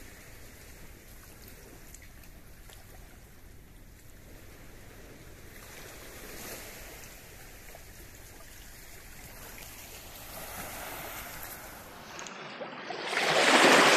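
Steady rushing of water in a river swollen by flooding, with a much louder surge of rushing noise in the last second or so.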